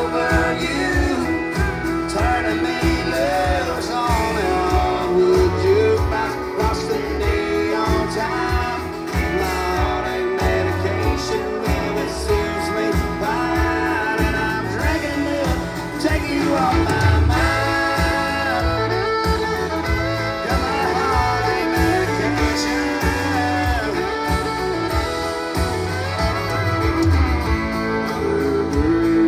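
Live country band: a man singing lead over acoustic and electric guitar with a steady beat, recorded from the crowd.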